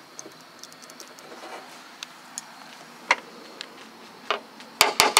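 Light scattered clicks and ticks from hands working on the door lock wiring and parts inside a truck door, then a quick run of sharp knocks near the end.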